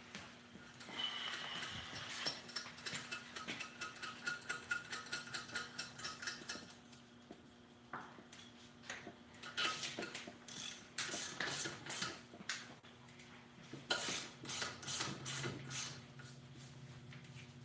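Metal hand tools working on an LS cylinder head: a run of quick, even clicks for several seconds, then scattered sharper metal clanks.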